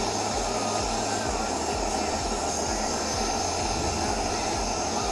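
Jeweller's hand-held torch flame burning with a steady rushing noise at full heat, melting pure silver grains in a clay crucible.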